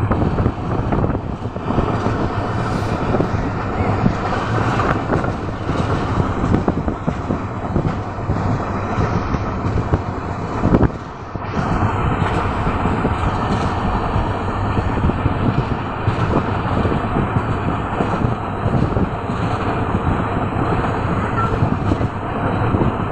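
Passenger train running at speed, a steady rumble of the wheels and rushing air coming in through an open barred window.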